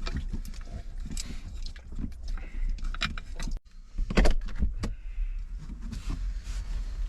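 Irregular clinks and knocks of a small metal cooking pot and utensils being handled, over a steady low rumble.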